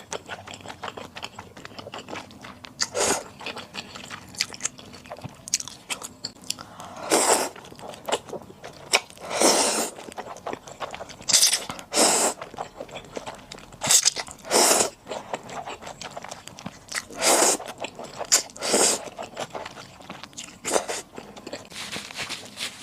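Close-miked eating of rosé buldak with flat glass noodles: wet chewing and biting with irregular louder bursts a second or two apart, each lasting up to about a second.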